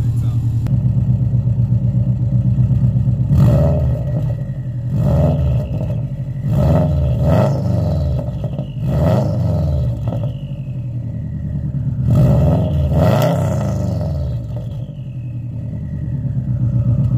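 2003 Subaru WRX's turbocharged flat-four idling through a large 4-inch Invidia N1 axle-back exhaust. From a few seconds in it is blipped up and back down about six or seven times over ten seconds, then settles back to a steady idle.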